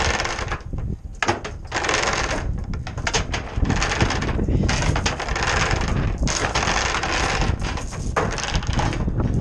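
Anchor line and chain being hauled in over a boat's bow, with irregular metallic clinking and rattling mixed with wind and water noise.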